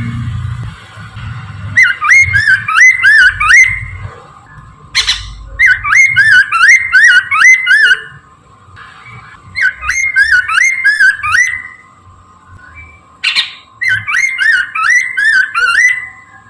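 Poksay mandarin laughingthrush singing loud, rapid phrases of repeated rising-and-falling whistled notes, each phrase about two seconds long, four times with short pauses between. A sharp click sounds twice, about five seconds in and near the end.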